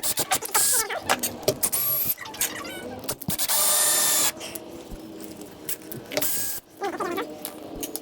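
Power drill driving a screw in about a one-second run of the motor, with a shorter run later, amid clicks and knocks of handling the hardware.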